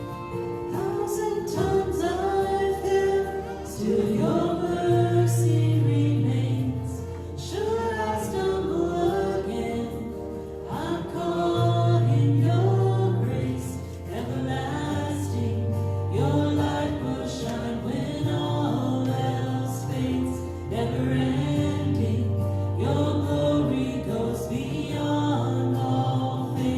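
Christian worship song: voices singing over instrumental backing, with sustained bass notes changing every couple of seconds.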